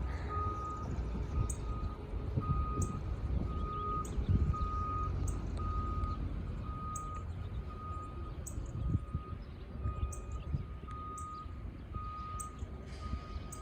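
Backup alarm of a reversing work machine, beeping steadily about once a second over a low diesel engine rumble. The sound is muffled by a finger over the microphone.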